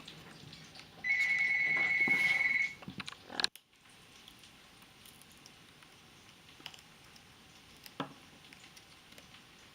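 A single steady, high-pitched beeping tone held for about a second and a half, then a sharp click; after that only faint scattered clicks.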